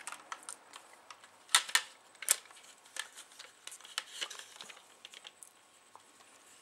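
Clicks and knocks of the plastic CD-mechanism carrier and chassis of a twin CD player as they are handled and worked free, with a few louder knocks around two seconds in.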